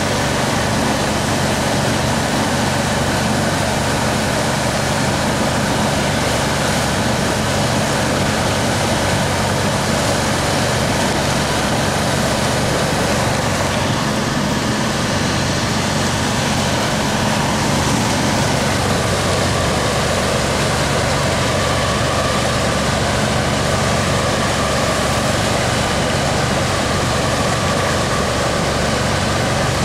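Steady rush of water churning along a wooden boat's hull while she is under tow, with a steady engine drone underneath.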